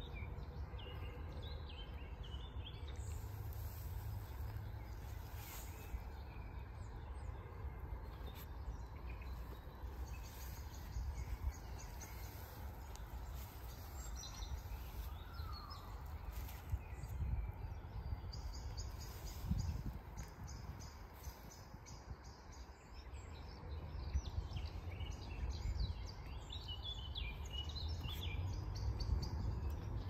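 Outdoor field ambience: small songbirds chirping, with a few runs of rapid trilling notes, over a steady low background rumble.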